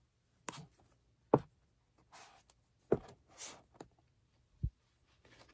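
Paperback manga volumes being handled and stood on a shelf: several light knocks and taps, two short soft rustles of the covers sliding, and a low thump near the end.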